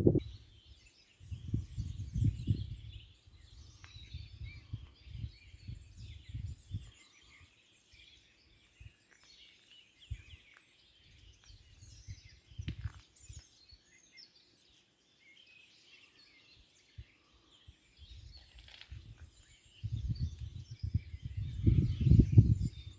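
Wind buffeting the microphone in irregular gusts, heaviest about a second in and again near the end, over small birds chirping and twittering steadily in the background.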